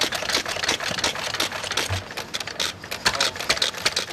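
Old hit-and-miss gas engine running, with a fast, even mechanical clatter of about eight clicks a second; it dips briefly in the middle, where a single low thump is heard.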